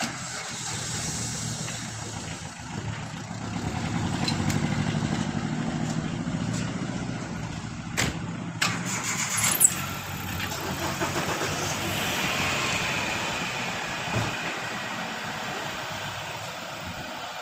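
Vehicle engines running as a small pickup truck pulls away, loudest about four to six seconds in. A few sharp knocks come around eight to ten seconds in.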